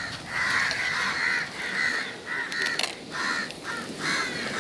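Crows cawing repeatedly, short harsh calls following one another about every half second.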